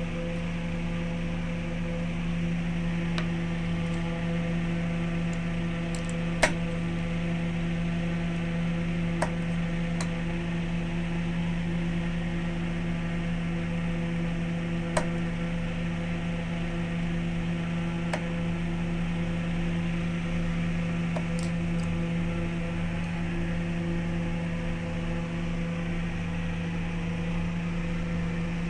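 Wood lathe's electric motor running at a steady speed with an even hum, with several sharp clicks or taps spaced a few seconds apart.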